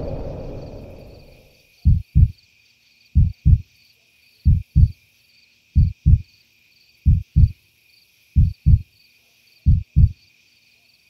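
Slow heartbeat sound effect: seven low double thumps (lub-dub), one pair about every 1.3 seconds, over a faint high chirping. A low rumble fades away in the first two seconds before the beats start.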